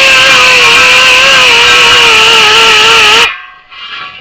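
Die grinder running flat out with a loud, steady high-pitched whine and hiss, cleaning a steel wheel rim, then switched off about three seconds in and winding down.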